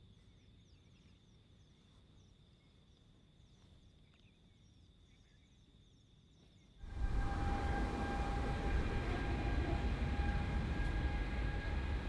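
Faint outdoor ambience with small birds chirping and a steady high buzz. About seven seconds in, it cuts suddenly to the loud jet noise of an Air New Zealand Boeing 787's engines at high power: a low rumble under steady whining tones.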